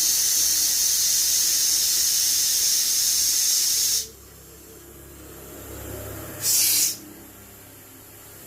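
Pressurised gas hissing out of a refrigerator's cooling line in a long burst that cuts off suddenly about four seconds in, then a second short burst about two seconds later.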